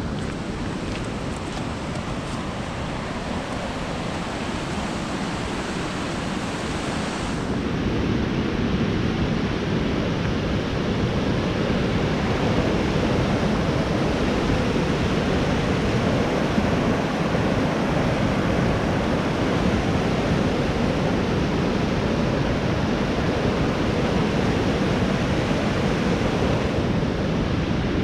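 Rushing creek water pouring over rapids and boulders, a steady rush of white water that grows louder about eight seconds in.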